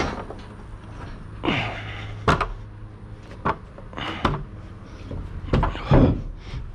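Irregular knocks and clanks of hands and feet on a steel scaffold frame and its planks as someone climbs down, about half a dozen bumps, the loudest near the end.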